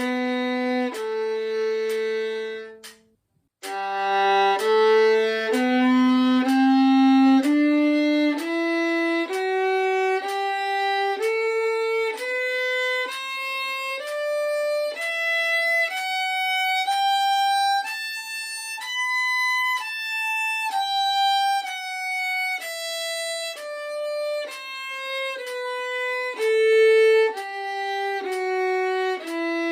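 Solo violin playing a G major scale in even bowed notes, about one note a second, climbing from the low G up the scale and then coming back down. About three seconds in, a long note on the low G ends in a brief silence before the next run begins.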